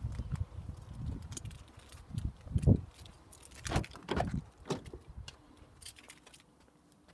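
Wind rumble and handling noise on a handheld phone microphone, then a heavy thump and a run of clicks and knocks, the sounds of opening a car door and getting into the car; it goes quiet near the end once inside the closed cabin.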